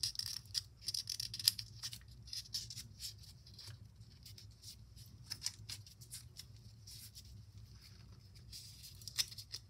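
A strip of construction paper rustling and crinkling as hands wrap it tightly around a pencil to curl it into a spiral: a run of soft, quick crackles, busiest in the first few seconds and again near the end.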